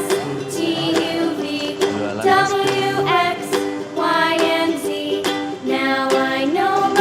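Background music: a children's-style song with a female voice singing over a plucked ukulele or guitar accompaniment.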